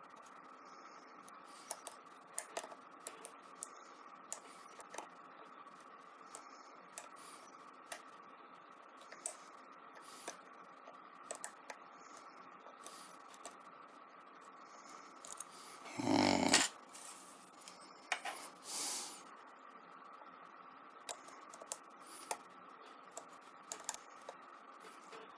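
Lock picks working inside an ABUS 83/45 padlock: small, irregular metallic clicks and scrapes as the pins are probed and set under tension, with two louder, longer scraping rustles about 16 and 18 seconds in. A faint steady hum runs underneath.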